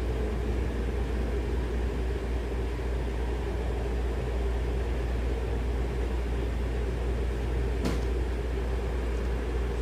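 Steady low hum, like a running machine or motor, with one brief click about eight seconds in.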